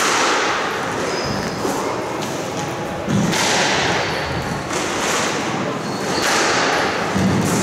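Squash balls thudding against court walls in a reverberant squash hall, with a few heavier thuds about three seconds in and again near the end, over the murmur of voices.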